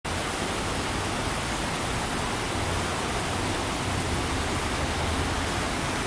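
Steady, even rushing noise of water, with rain falling on the river.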